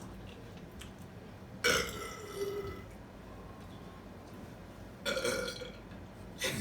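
Two loud human burps, deliberately forced out after drinking soda: the first starts just under two seconds in and lasts about a second, the second comes about five seconds in and is shorter.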